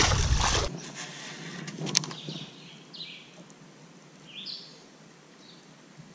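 A released bass splashes back into the lake, a brief loud splash that cuts off suddenly. Then comes quiet outdoor ambience with a bird chirping a few short times and a single click about two seconds in.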